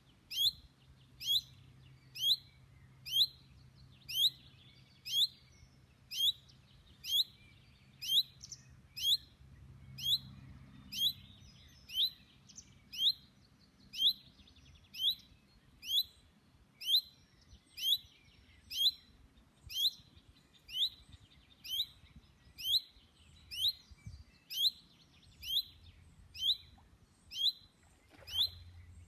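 Common chaffinch calling monotonously: one short, curved whistled note repeated steadily about once a second, the chaffinch's so-called rain call. A soft knock about a second before the end.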